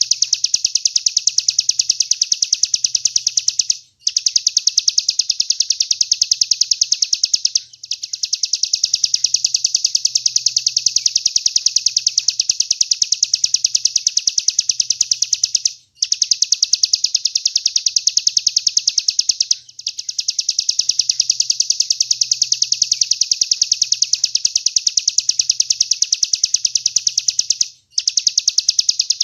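A songbird's rapid-fire 'tembakan' song: very fast, evenly repeated high notes in long runs, broken by brief pauses about every 4 to 12 seconds. It is a masteran recording used to tutor competition songbirds.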